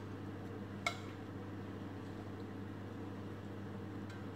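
Metal spatula stirring fried rice in a pan, with a single light clink of the spatula against the pan about a second in and a fainter tick near the end, over a steady low hum.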